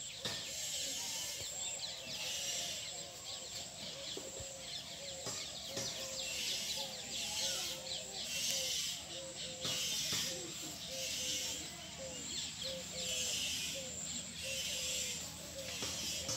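Outdoor ambience of birds chirping, over a high hiss that swells and fades every second or so. A short low call repeats about twice a second through the second half.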